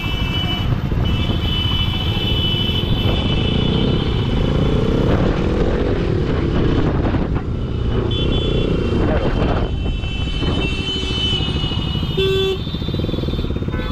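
Motorcycle engine running at low speed in heavy traffic, under a steady low rumble of wind on the microphone, while vehicle horns honk several times, with held high-pitched tones near the start, partway through and toward the end.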